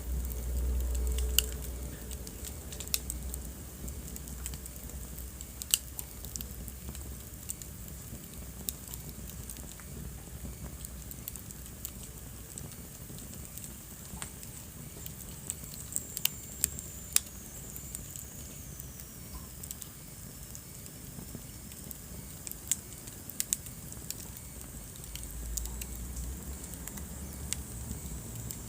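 Wood fire burning in a fireplace: a steady hiss with irregular sharp crackles and pops, and a faint high whistle that slides down in pitch about two-thirds of the way in.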